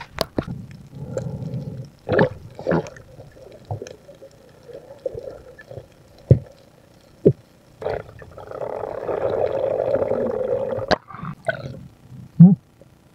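Underwater noise picked up by a diver's camera: scattered sharp clicks and knocks over low rumbling water movement, with a steady rushing noise lasting about two and a half seconds past the middle.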